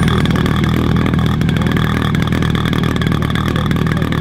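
DLE two-stroke petrol engine of a large-scale RC Pitts biplane running steadily at idle, its propeller turning, just after being hand-started.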